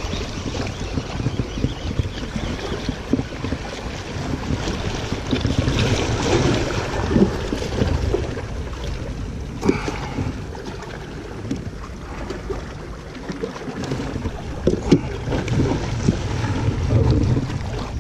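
Wind buffeting the microphone over sea water washing against breakwater rocks, with a few short knocks from handling gear, the sharpest about ten seconds in and again near fifteen seconds.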